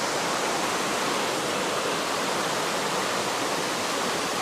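Waterfall: water pouring and splashing in a steady, even rush.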